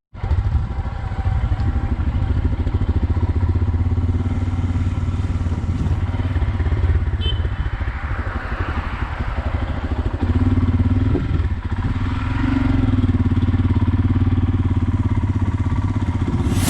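Motorcycle engine running steadily under way, a low pulsing drone, with a broad rush of noise swelling about eight seconds in.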